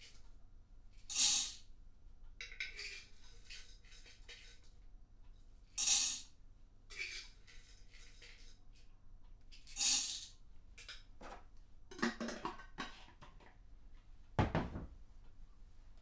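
Whole coffee beans tipped in short spills into the clear plastic hopper of an OXO Brew burr grinder, three spills a few seconds apart, then a run of small clicks and a dull thump near the end.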